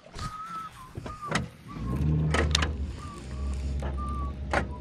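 Baitcasting reel being cranked, a whirring gear whine in short spurts, with a few sharp clicks and a low rumble through the middle.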